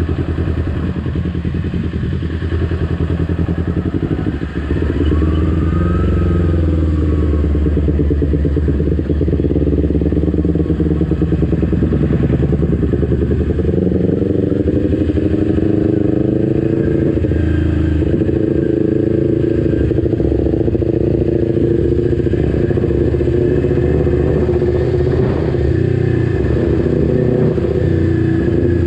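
Kawasaki Ninja 250 FI's parallel-twin engine running at low road speed, its revs rising and falling as the bike is ridden.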